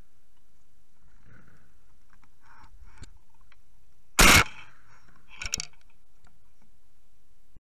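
A single shotgun shot fired at a passing dove, a loud sharp blast about four seconds in. A fainter clatter of clicks follows about a second later.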